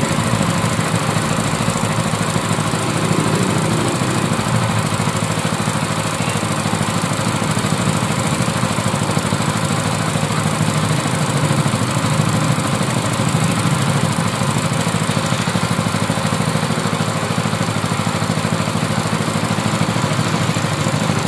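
7 hp gasoline engine of a water pump set running steadily, now that its cleaned carburetor has cured a no-start.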